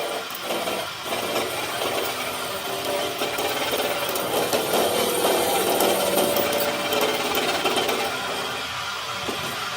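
A power tool working on metal, running continuously with an uneven, churning noise that eases slightly near the end.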